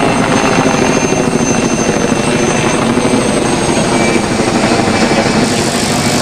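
Helicopter in flight, its rotor beating in a fast, steady chop.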